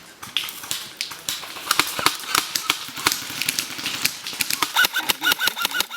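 Airsoft electric rifles firing, a dense, irregular string of sharp snapping shots, settling near the end into an even run of about four shots a second.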